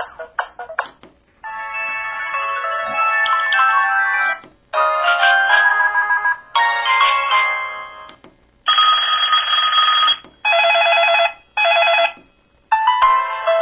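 LG-SV520 mobile phone playing its built-in ringtone melodies one after another, each a short electronic tune of one to three seconds, cut off with brief silent gaps between them.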